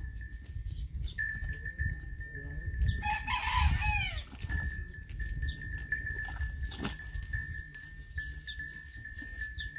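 A farm animal calls once, a pitched call of about a second starting about three seconds in, over low background noise and a faint steady high whine. A single sharp knock comes about seven seconds in.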